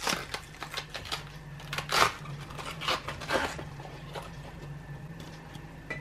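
Kitchen knife cutting leaves free at the stem of a white cabbage head, the crisp leaves crackling and snapping as they are pulled away, with a few sharper cracks.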